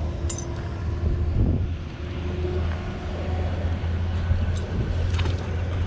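Steady low rumble of city traffic, with a few light clicks.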